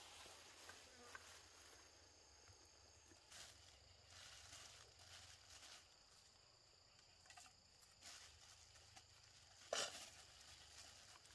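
Near silence: a faint, steady high insect hum, with a few soft rustles of a thin plastic bag being handled. The loudest crinkle comes near the end.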